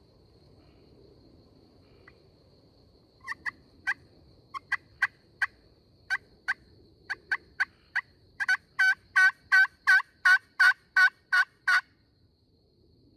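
Turkey pot call (friction call) worked by hand: a scattering of short single clucks, then a run of about ten yelps at roughly three a second, the yelps the loudest.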